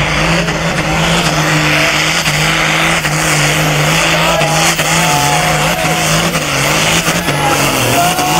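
Modified pulling tractor's engine running flat out under full load as it drags the weight sled, front wheels in the air and black smoke pouring from the stack. The engine holds a steady note that sags briefly about seven seconds in, then picks up again.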